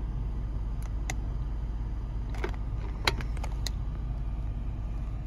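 A handful of short, sharp clicks from the switches and knob of an SWR/wattmeter being set, the sharpest a little after three seconds. Under them runs a steady low rumble of the closed car cabin.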